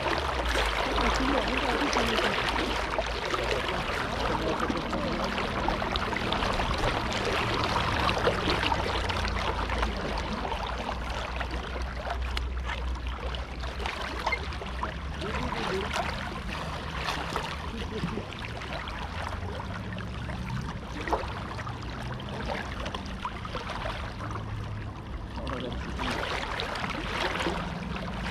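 Steady rush of flowing river water, a little louder in the first half, with a low rumble underneath.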